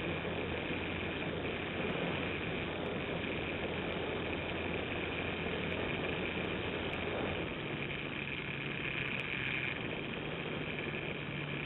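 Model airplane's motor and propeller running steadily in flight, heard from a camera mounted on the airframe, with a steady hum and rushing noise. About two thirds of the way through the low tone changes pitch.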